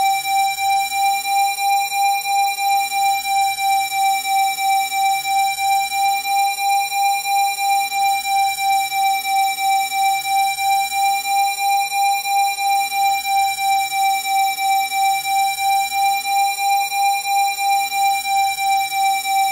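Steady electronic tone at 787 Hz, a Rife frequency, with faint higher overtones. Its loudness pulses evenly a little more than twice a second.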